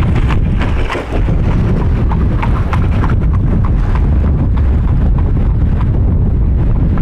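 Norfolk & Western 475, a 4-8-0 steam locomotive, working hard: sharp exhaust chuffs at about three a second over a heavy low rumble, the chuffs growing fainter after about four seconds.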